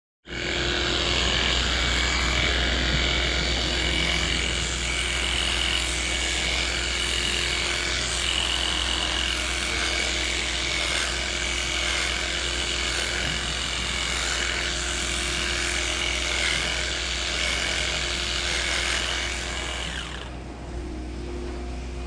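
Electric animal clippers buzzing steadily as they trim a cow's tail hair, over a steady low hum. The buzzing stops about 20 seconds in, leaving the low hum.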